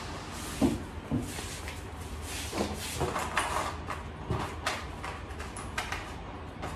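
Irregular knocks, clicks and scraping from handling and fitting the panels of a flat-pack cube shelving unit during assembly, with about half a dozen sharp knocks spread through.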